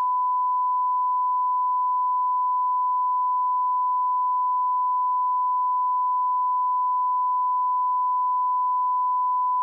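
Steady 1 kHz sine test tone held at one pitch and level: the line-up reference tone of a bars-and-tone leader, cutting off abruptly at the end.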